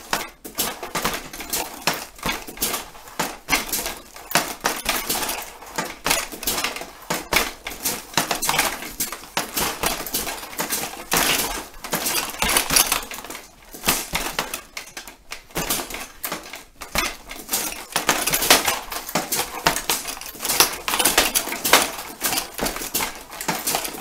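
Boxing against a Universal Punch Back machine with a heavy bag: a fast, continuous run of knocks and slaps as gloves hit the bag and the machine's padded punch arms swing in and strike the boxer's gloves and guard.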